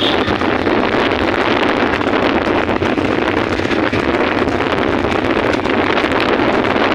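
Steady wind rushing over the microphone of a camera carried on a moving vehicle, mixed with road and vehicle running noise.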